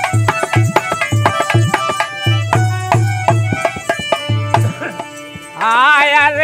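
Dholak playing a steady folk-bhajan beat under sustained melody notes from an accompanying instrument. The drumming stops about four and a half seconds in, and near the end a singer comes in on a held, wavering note.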